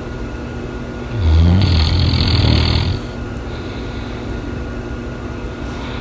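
A sleeping dog snoring: one loud, low snore starts about a second in and lasts about two seconds, followed by a softer, airy breath.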